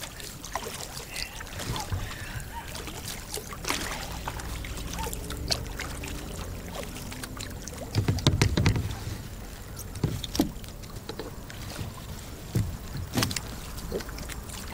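Kayak paddling: a double-bladed paddle dipping and splashing, with scattered knocks and drips, over a steady low rumble; a louder low rumble about eight seconds in.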